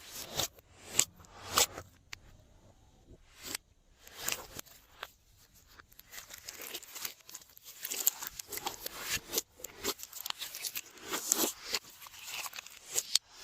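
Glossy slime being squished and stretched by hand, making sticky pops and crackles. A few sharp pops come in the first two seconds, then after a short lull a dense run of small crackling clicks.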